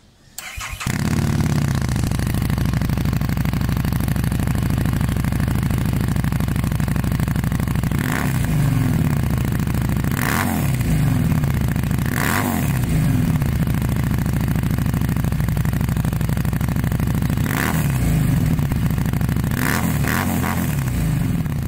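Harley-Davidson Street 750 V-twin idling through an aftermarket SS Moto slip-on exhaust, with several short throttle blips that rise in pitch and fall back to idle.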